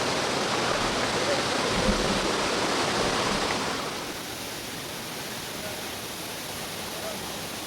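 Waterfall rushing: a steady, full hiss of falling water that gets quieter about four seconds in.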